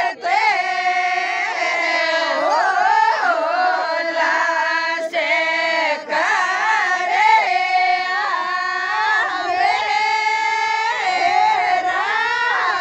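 A group of women singing a Rajasthani folk song (mayra geet) together in high, gliding voices, with no drum keeping a beat.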